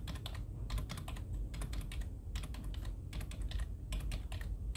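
Fingers typing on a computer keyboard: runs of quick keystrokes broken by short pauses, over a low steady hum.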